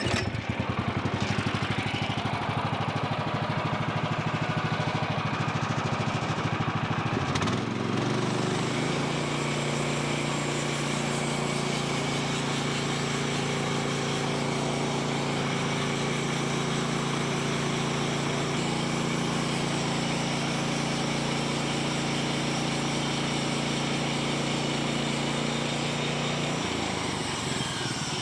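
Small gasoline engine of a portable bandsaw mill starting up and running, then throttled up about eight seconds in to a steady, higher-pitched run.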